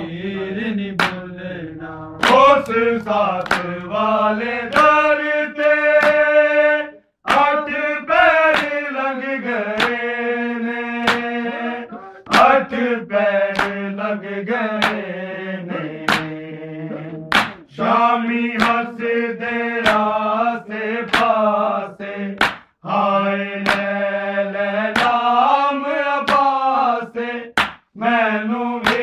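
Men's voices chanting a Punjabi noha in long held, bending lines, with sharp slaps of matam (hands striking the chest) keeping a steady beat about once a second.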